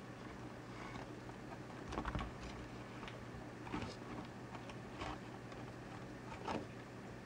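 Leopard tortoise hatchlings crawling over driftwood and wood chips: light irregular clicks and scrapes of shells and claws, with about four louder knocks spread through, over a low steady hum.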